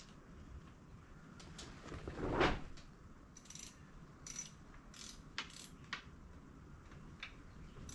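Metal hand tools clinking and clicking against the steel of a tracked machine's undercarriage as a wrench is worked on the track tensioner's grease fitting: a louder scrape about two seconds in, then several short clinks.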